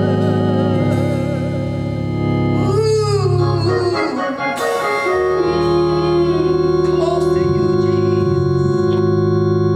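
Organ playing slow, held chords as a musical interlude, with a brief swooping glide in pitch about three seconds in.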